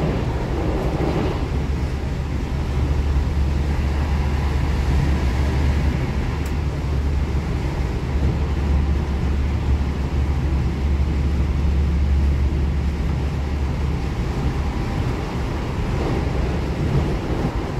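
Steady running rumble of a moving train heard inside the upper deck of an SNCF V2N double-deck coach: wheels rolling on the rails, a deep low drone with a hiss of running noise above it.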